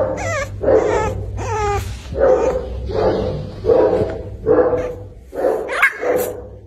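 Black French bulldog puppy barking in a run of about ten short, high yaps, evenly spaced.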